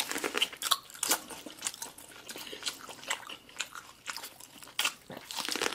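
Close-miked eating sounds: irregular crunchy bites and chewing of corn on the cob and seafood boil, heard as a scatter of short clicks and crunches.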